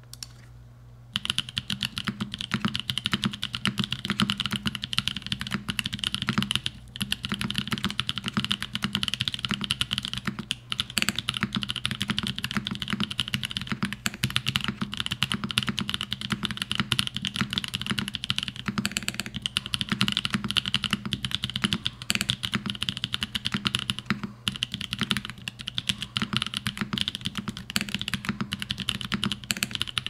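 Fast, continuous typing on a GrayStudio Think6.5 V2 LE custom mechanical keyboard built with U4T tactile switches lubed Gazzew-style with 3204, a POM plate, Durock V2 stabilizers, silicone case foam without PCB foam, and GMK Cafe keycaps. The typing starts about a second in and goes on with only a few short pauses.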